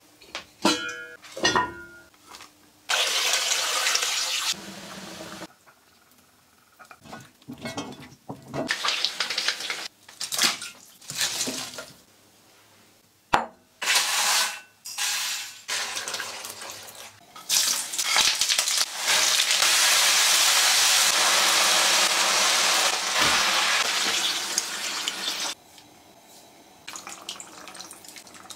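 A string of kitchen sounds: a ceramic pot lid clinking a few times near the start, dried chilli peppers tipped from a glass into a bowl about halfway through, and several long stretches of steady rushing noise of liquid poured or running. The longest stretch comes in the last third.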